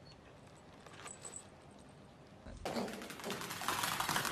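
A few faint high-pitched chirps, then about two and a half seconds in a fast, dense clicking starts and grows louder: a small puppy's claws pattering on a hard floor as it runs.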